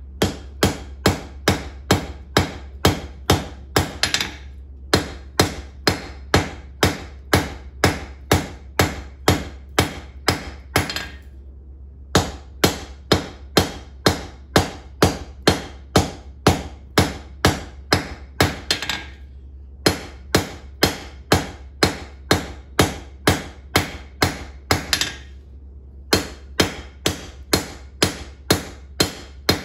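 Blacksmith's hand hammer striking a red-hot steel tong rein on an anvil, easing its corners round: ringing blows about three a second, in five runs separated by short pauses.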